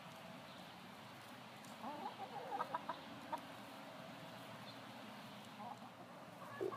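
Hens clucking: a quick run of short clucks about two seconds in, one more just after, and another call near the end.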